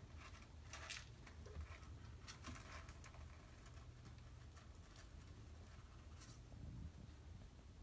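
Near silence with a few faint, short rustles and scratches: a small kitten's paws moving over a cloth blanket.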